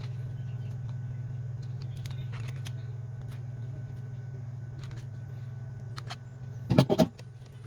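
Scattered faint clicks over a steady low hum, with a short clatter of two or three louder knocks near the end.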